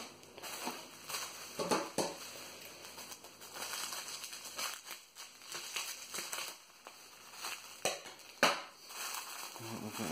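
Plastic bubble wrap and packing paper crinkling and rustling as wrapped bundles are handled in a cardboard box, with a few sharp crackles, the loudest about eight and a half seconds in.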